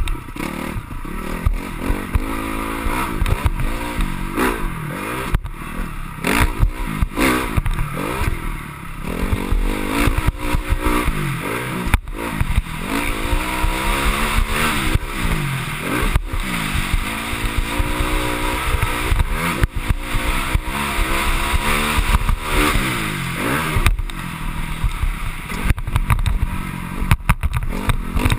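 Honda CRF250R dirt bike's single-cylinder four-stroke engine revving up and down again and again, its pitch rising and falling through the gears while being ridden hard around a motocross track. Wind rushes over the microphone, with sharp knocks from the bike hitting bumps.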